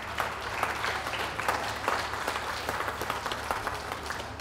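Audience applauding: dense, steady clapping from many hands that thins out near the end.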